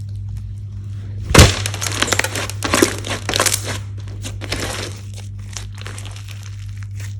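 Slime being kneaded and mixed by hand, giving irregular crackly, crinkling pops, with one sharp loud snap about a second and a half in, over a steady low hum.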